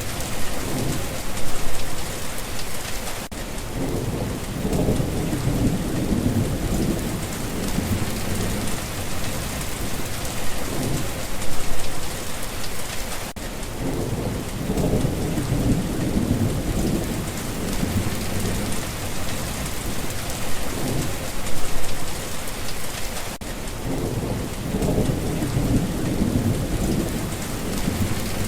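Steady rain falling, with low thunder rolling in and out three times, about every ten seconds.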